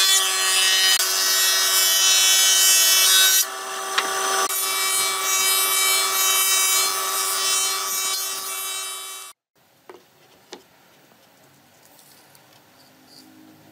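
Combination planer-thicknesser running with a steady whine and hiss as a wooden board feeds through its thicknesser; the sound dips slightly about a third of the way in, then cuts off abruptly, followed by a couple of faint clicks.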